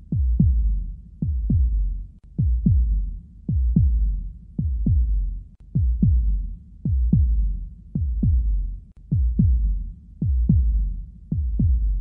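Heartbeat sound effect: steady lub-dub double thumps, a little over one beat a second, each thump dropping quickly in pitch, over a low rumble.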